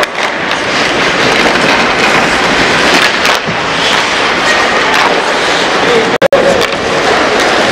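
Ice hockey play: skates scraping the ice, with sticks and puck clacking and voices calling out over a steady rink hiss. The sound cuts out twice for an instant about six seconds in.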